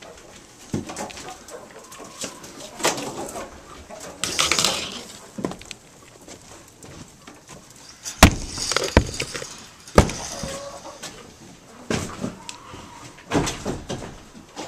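Hens clucking in a coop, mixed with handling noise: several sharp knocks and clatters, the loudest a cluster about eight to ten seconds in and another near the end.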